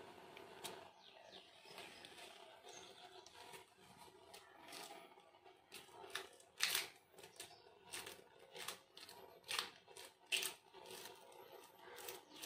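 A cat chewing and crunching a piece of dried salted fish: irregular short crunches, sparse at first and coming thick and fast after about six seconds.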